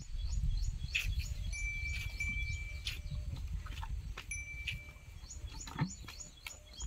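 Small brass bell on a water buffalo's neck clinking several times, some strikes ringing on for about a second, over a steady low wind rumble on the microphone, with small birds chirping.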